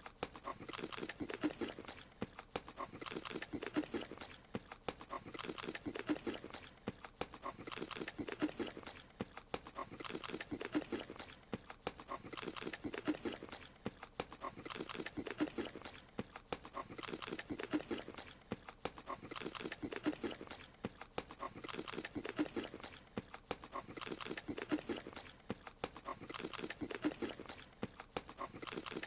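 Animated creature's eating sound: rapid, wet, animal-like munching and chomping, repeating in an even loop about every two seconds.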